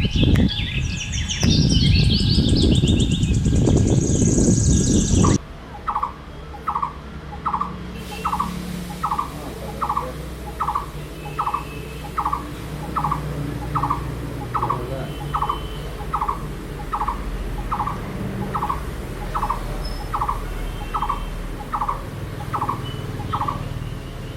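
Blue-throated barbet calling: a long, even series of hollow single notes, about one and a half to two a second. For the first five seconds, before the calling, there is a loud low rumble with high twittering from small birds, and it cuts off abruptly.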